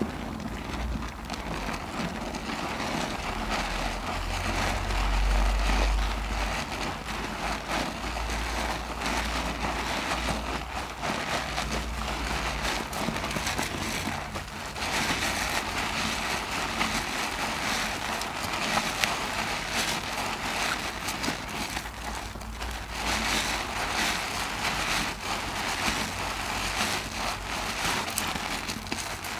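A big soap-soaked mesh loofah being squeezed and kneaded by hand in thick lather: continuous wet squelching of the suds with a steady fine crackle.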